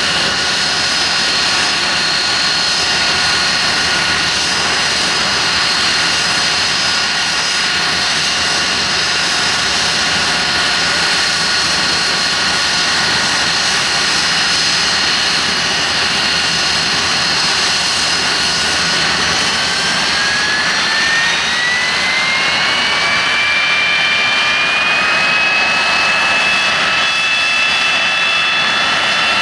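Nimrod's four Rolls-Royce Spey turbofans running with a steady whine over a broad rush, then spooling up about two-thirds of the way through, the whine rising and holding at a higher pitch as power is increased.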